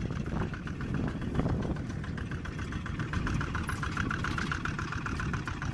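Farm tractor engine running steadily under load while pulling a disc plough through soil, with a fast, even rhythmic pulsing over the engine note.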